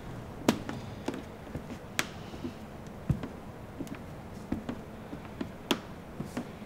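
Footsteps on a smooth hard floor: a series of sharp, slightly irregular taps and knocks, about two a second.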